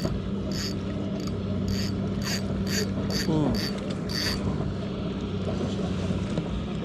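Spinning reel being cranked to wind in a hooked sea bass, its gearing ticking about twice a second; the winding stops about four seconds in. A steady low hum runs underneath.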